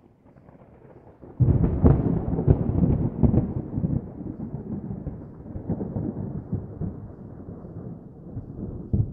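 Thunder: a low rumble breaks into a sudden loud clap about one and a half seconds in, then rolls on with crackles and slowly fades, swelling again briefly near the end.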